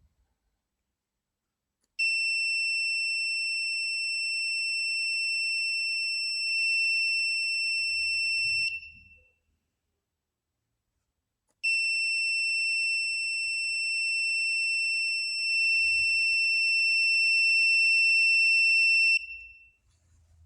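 Buzzer of an Arduino UNO gas-leak alarm sounding a steady high-pitched tone for about seven seconds, stopping for about three seconds, then sounding again for about seven and a half seconds: the alarm going off because the MQ-4 sensor is detecting gas.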